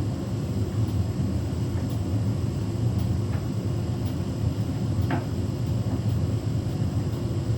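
Beko WTK104121W washing machine running with a steady low rumble as its drum turns an unbalanced load of bedding, trying to work up to spin speed.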